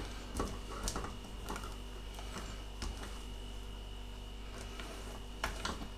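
A spoon folding whipped cream into a thick white-chocolate mixture in a stainless steel bowl: soft squishing and scraping, with a few light clicks of metal on metal scattered through.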